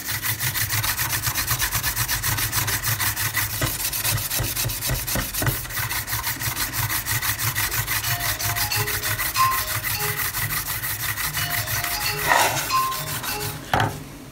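An abrasive stone scrubbed back and forth along a rusty steel knife blade in rapid, even strokes, several a second, grinding off heavy rust. From about halfway, a phone's ringtone plays faintly in short notes, and the scrubbing stops just before the end.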